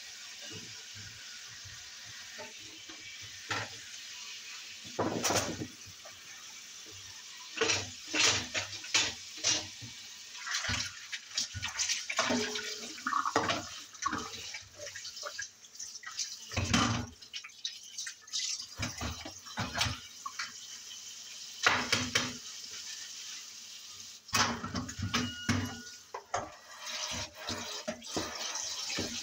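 Kitchen tap running into a stainless-steel sink while dishes are washed by hand, with repeated clinks and clatters of dishes and cutlery over the steady water.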